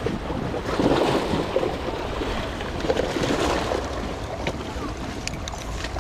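Strong wind buffeting the microphone: a steady rushing noise with a low rumble.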